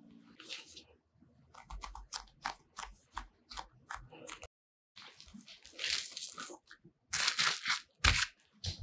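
Plastic cling film crinkling and rustling in several loud bursts as it is stretched over a metal baking tray of dough rounds, in the second half. Before that, a run of light taps and clicks from dough being handled and pressed on the tray.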